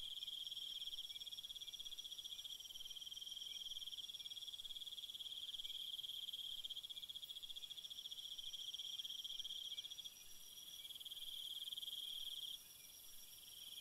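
Chorus of insects trilling, a steady high-pitched pulsing that dips briefly twice near the end.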